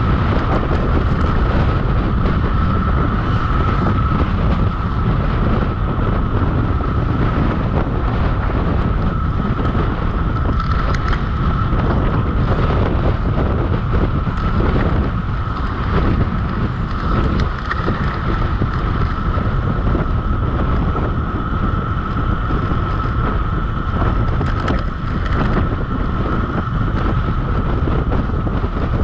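Wind buffeting the microphone during a fast bicycle descent, a loud steady rush with a constant high-pitched hum running through it.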